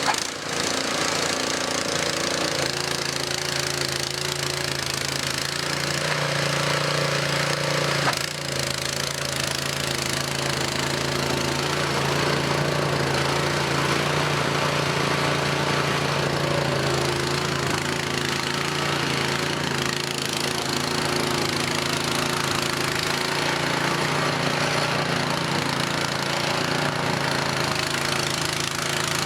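Cub Cadet 2X 524 SWE two-stage snowblower's engine running steadily, its pitch shifting slightly a couple of times, with a brief knock about eight seconds in.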